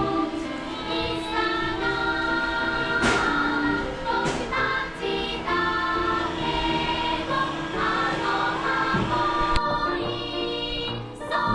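Choir singing a song with musical accompaniment. The sound changes abruptly nearly ten seconds in, as at an edit.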